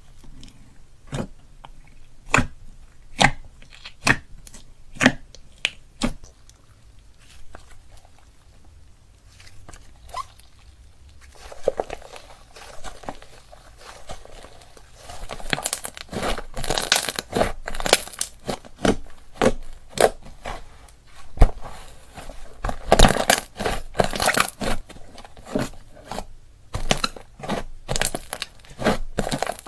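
Slime being pressed and squished by hand, giving sharp sticky pops and clicks. They come a few at a time at first, then about a third of the way in turn to a denser, louder crackling.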